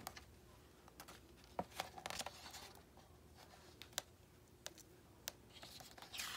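Faint handling of a picture book's pages: scattered soft ticks and light rustles as a clear acetate overlay page is lifted and turned. A slightly louder paper rustle follows near the end.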